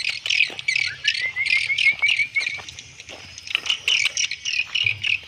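Birds and insects chirping: many quick, high-pitched chirps, with a run of short, evenly repeated rising chirps about a second in.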